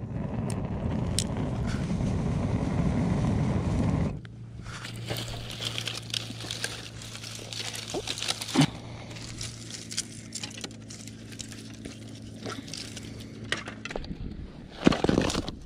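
Dry twigs and brush being handled, snapped and stacked onto a small, just-lit campfire: scattered crackles, snaps and rustles, with a few louder knocks near the end. A loud low rushing noise covers the first four seconds, and a steady low hum runs under most of the rest.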